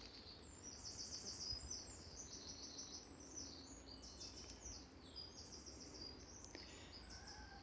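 Small songbirds singing: a continuous, faint run of quick, high trilled and chirping phrases.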